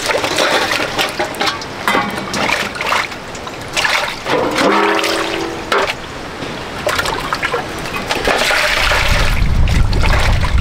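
Water splashing and trickling, with a short pitched sound about halfway through and a low rumble coming in near the end.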